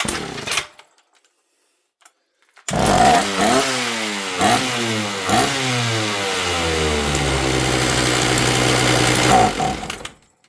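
Old two-stroke chainsaw being started: a short sputter right at the start, then about three seconds in the engine catches and revs in a few blips roughly a second apart. It runs steadily for about five seconds and cuts out suddenly near the end. It runs only briefly after a splash of fuel in the carburetor, and the owner suspects it needs a carb kit.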